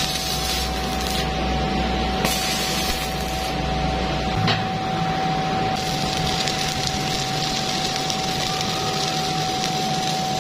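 Stick (MMA) welding arc crackling steadily as a coated electrode is run on steel plate, from a Stahlwerk InMIG-6LV inverter welder. A steady tone sits underneath. The sound changes character about four and a half seconds in.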